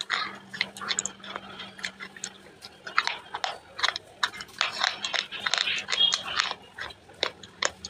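Close-up mouth sounds of someone chewing a thick wet earthy paste: irregular sticky smacks and clicks, several a second.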